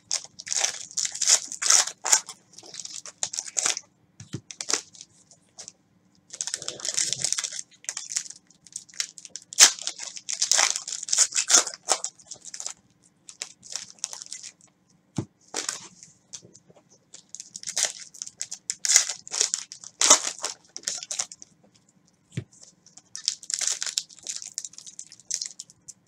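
Foil trading-card pack wrappers crinkling and tearing as packs are ripped open and the cards handled by gloved hands. The sound comes in bursts of crisp rustling with short pauses between them.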